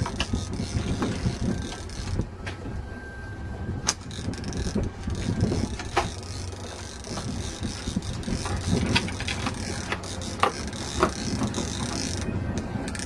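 Fishing reel being cranked, its gears clicking and ratcheting over a steady low rumble of wind and water, as a hooked fish is reeled in.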